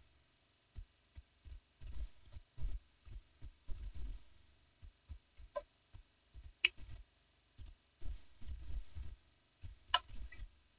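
Wind buffeting the microphone in irregular low rumbling thumps, with three short sharp clicks, two about halfway through and one near the end.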